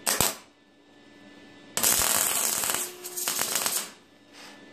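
Electric arc welding crackling as a steel exhaust bracket is welded onto a frame brace. A brief burst comes first, then a longer weld of about two seconds starts near the middle, with a short break partway through.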